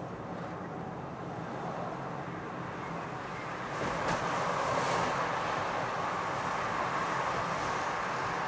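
Steady running noise of a vehicle in motion, a low rumble under a broad hiss, growing louder about four seconds in.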